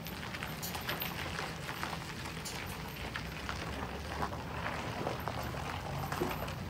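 Stopped freight train: a steady low rumble with irregular crackling and clicking over it.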